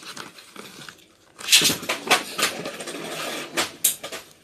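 Handling noise from an electric food chopper's clear plastic bowl and lid in its cardboard box: rustling with a quick run of sharp clicks and knocks starting about a second and a half in. The motor is not running.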